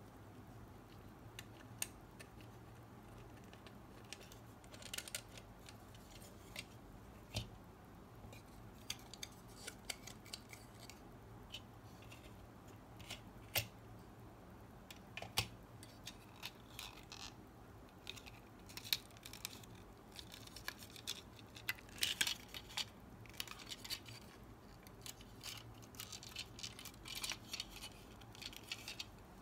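Hard plastic parts of a 1:24 die-cast model kit clicking, tapping and rubbing as they are handled and pressed together: the interior tub being fitted onto the chassis. Scattered light clicks, busier in the second half.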